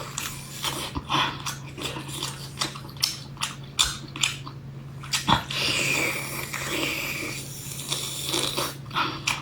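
Close-miked chewing and biting of food, with many short wet clicks and smacks. A soft hiss joins in about halfway through for a couple of seconds.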